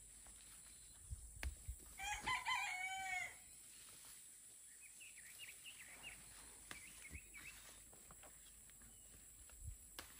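A rooster crowing once, a single call of just over a second about two seconds in. Fainter high chirps follow a few seconds later, with a few soft clicks scattered through.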